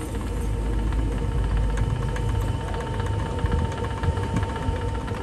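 Steady low hum of workshop machinery running, with a few light metallic clicks around the middle.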